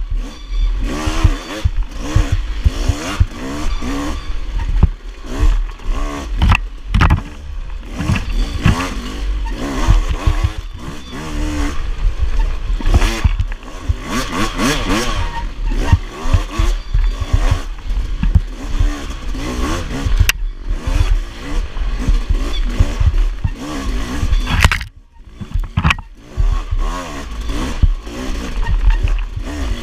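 Enduro dirt bike engine being ridden hard on a trail, its revs rising and falling constantly with the throttle, with frequent knocks and clatter from the bike. The revs drop away briefly near the end, then pick up again.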